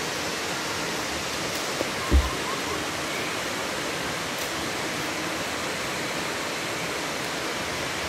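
Steady rushing of the two-tier Hegu Falls, an even roar of falling water. A single low thump about two seconds in.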